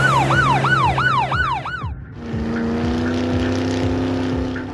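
Police car siren in a fast yelp, a quick series of falling wails, that cuts off about two seconds in. A steady engine drone follows.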